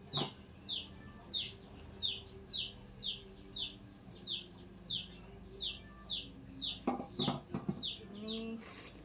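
A bird peeping over and over, short falling peeps about twice a second, with a steady low hum underneath.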